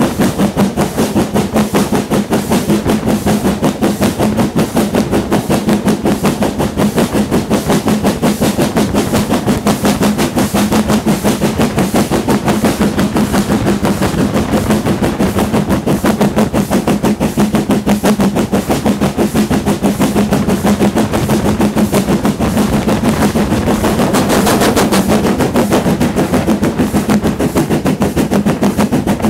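LMS Black Five No. 45379, a two-cylinder 4-6-0 steam locomotive, working steadily under way: a fast, even stream of exhaust beats over a steady hum.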